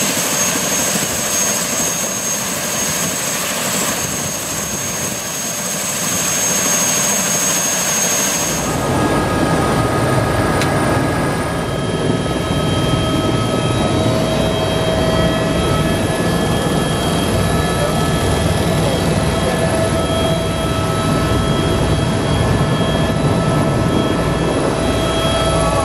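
Eurocopter EC130 turbine helicopter running on the ground with its rotor turning: a steady jet-like whine with high-pitched tones. About 8 seconds in the sound cuts to inside the cabin, a deeper, fuller drone with several steady whining tones.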